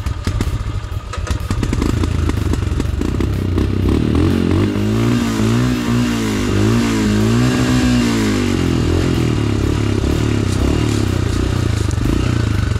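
Motorcycle engine pulling in first gear on a rough dirt trail, its pitch rising and falling several times in a row through the middle as the throttle is worked. Short knocks and rattles in the first couple of seconds.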